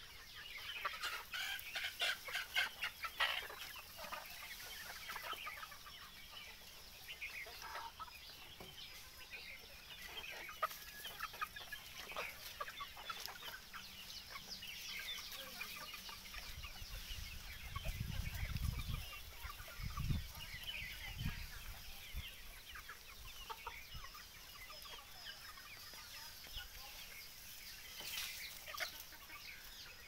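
A flock of free-range desi chickens clucking and calling. A low rumble comes in for a few seconds a little past the middle.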